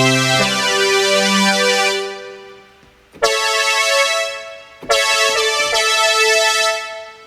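Korg Modwave synthesizer playing a layered sawtooth brass patch modelled on a Korg Wavestation preset: sustained brassy chords, a new one struck about three seconds in and another about five seconds in, each swelling and then dying away.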